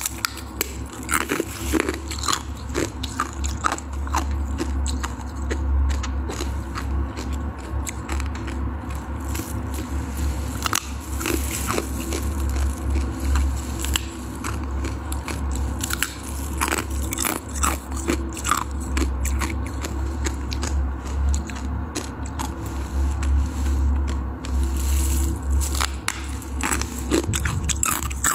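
Frozen ice being bitten and chewed close to the microphone: repeated sharp crunches and cracks, irregular and continuous, over a steady low hum.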